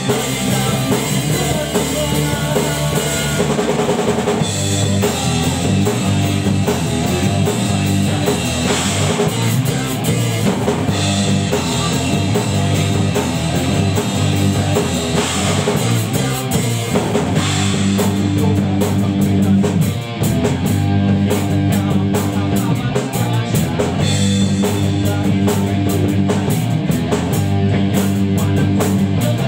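Rock band playing live together: distorted electric guitar, electric bass and a Pearl drum kit with kick, snare and cymbals keeping a steady beat. The band drops out for a moment about two-thirds of the way through, then comes back in.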